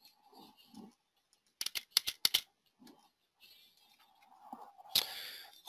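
Several sharp clicks in quick succession about two seconds in, typical of computer mouse or keyboard clicks, with faint mumbling before and after and a short breath near the end.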